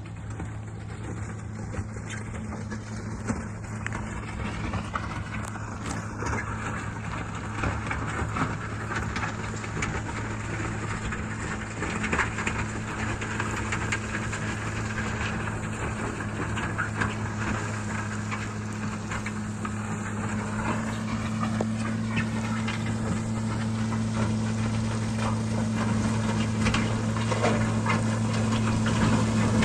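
A heavy machine's engine running at a steady pitch with clattering mechanical noise, growing gradually louder.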